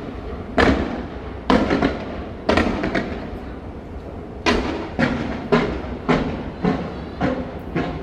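Aerial fireworks shells bursting in quick succession, about a dozen sharp booms over eight seconds, some in close pairs, each dying away over a fraction of a second.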